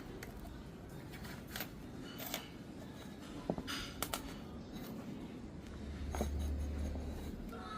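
Scattered light clicks and taps of a small metal pulley bearing and its seal being handled while it is regreased. A low hum comes in for about a second and a half near the end.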